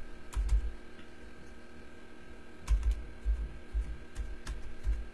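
Keys tapped on a computer keyboard, typing in a password: two keystrokes near the start, a pause, then an irregular run of keystrokes from about halfway in.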